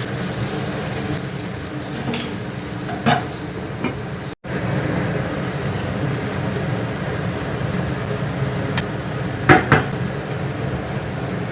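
Food sizzling in a pan over a steady hum, with a few light clinks of a utensil against the pan, two of them close together near the end.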